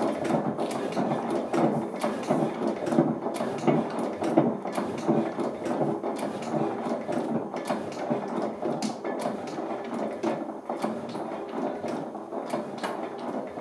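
Vintage single-cylinder stationary engine with twin flywheels running, giving a steady, dense mechanical clatter of clicks and knocks from its valve gear and linkage.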